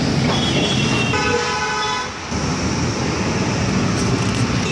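A vehicle horn honks for about a second, starting about a second in, over steady street traffic noise.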